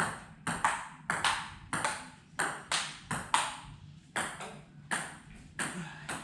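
Table tennis rally: the plastic ball clicks sharply and quickly in turn off the table top and the players' bats, about two to three hits a second, with a short pause a little after halfway.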